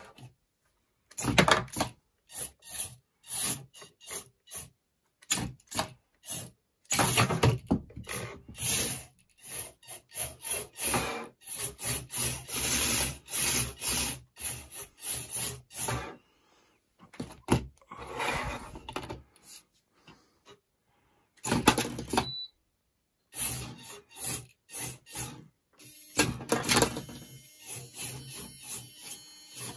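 Antweight four-wheel-drive flipper robot driving on a wooden desk in short bursts: small drive motors whirring, with wheels and plastic chassis scuffing and knocking on the wood. The bursts stop and start many times with brief silent gaps.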